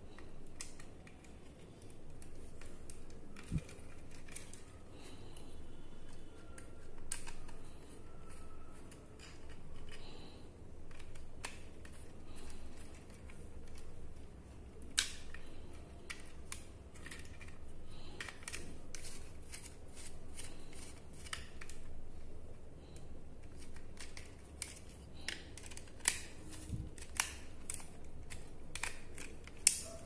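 Irregular small sharp clicks and light scraping from a screwdriver tightening the brass screw terminals of a plastic switch-socket, and from the copper wire and plastic board being handled, over a low steady hum.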